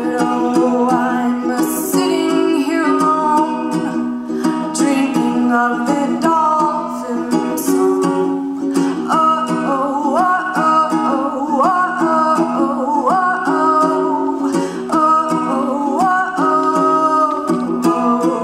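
A woman singing to her own strummed ukulele, with the voice gliding up onto held notes in the second half.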